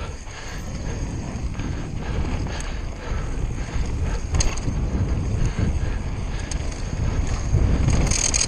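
Conway WME mountain bike running fast downhill on a loose, dusty trail: tyres rumbling and crunching over dirt and stones, the bike clicking and rattling over bumps, with wind buffeting the action camera's microphone. A louder scraping hiss comes near the end.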